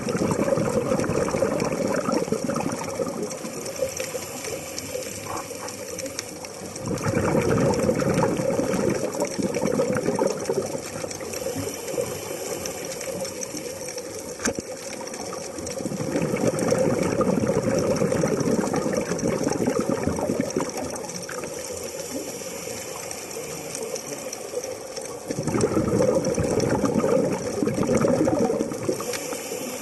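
Scuba regulator breathing underwater: exhaled bubbles rushing and crackling out of the regulator in four bouts of three to four seconds each, about every eight to nine seconds, with a quieter hiss between breaths.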